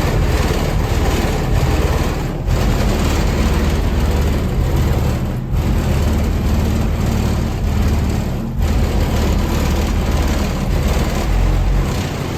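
Heavy subwoofer bass from two 15-inch American Bass subwoofers playing music very loud in the car's trunk, overloading the microphone, with the trunk rattling. The bass drops out briefly about every three seconds.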